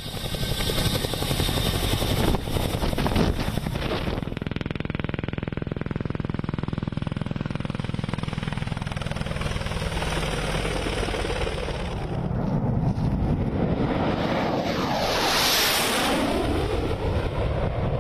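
Low-flying military aircraft: an AH-64 Apache attack helicopter's rotor and turbine noise, pulsing at first, then a steady rumble. Near the end a jet flies close past, its pitch sweeping as it goes by, loudest about three-quarters of the way through.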